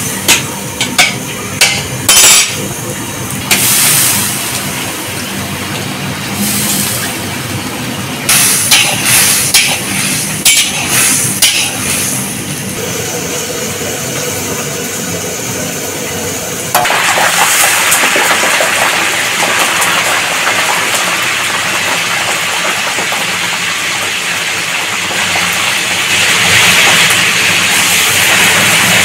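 A metal spatula scraping and clanking against a large iron kadai as diced potatoes are stirred. A little past halfway a loud, steady sizzling hiss begins: cauliflower florets frying in hot oil.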